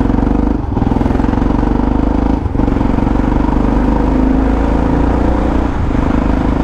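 Yamaha XT600E's single-cylinder four-stroke engine running under way through an old Coyote aftermarket exhaust, loud and steady, with two brief dips, about half a second and two and a half seconds in.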